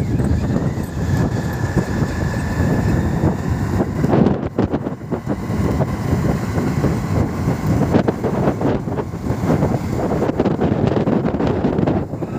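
Wind buffeting the microphone over the rumble of a moving vehicle, a rough, fluctuating noise with a few brief dips.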